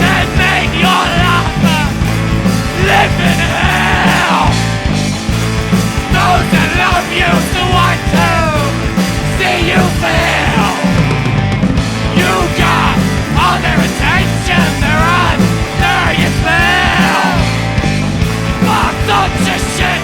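Rock band playing: drums, bass guitar and electric guitar under a bending melodic lead line from the singers or the tenor and baritone saxophones.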